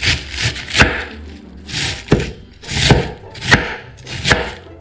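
Chef's knife slicing through a cabbage head in about six uneven strokes. Each stroke is a crisp crunch through the leaves, ending in a knock of the blade on a wooden chopping board.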